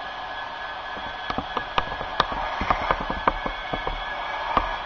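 Steady tinny drone of an OO gauge model diesel locomotive's DCC sound decoder playing through its small onboard speaker. A cluster of sharp, irregular clicks starts about a second in and runs to near the end.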